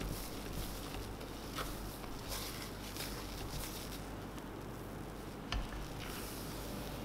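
A spatula stirring and folding thick, fully cooked liquid-soap paste in a crock, giving soft, irregular squishy clicks. There is one sharper tap about five and a half seconds in.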